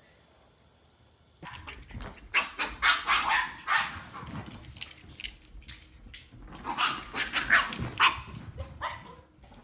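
A dog barking in two bouts of several short, loud barks, the first starting about a second and a half in and the second near the end.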